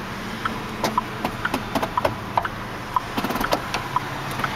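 Hazard-flasher ticking from a 2006 Chevrolet Colorado's instrument cluster: an even tick-tock alternating between two pitches, about two ticks a second, over a low steady hum.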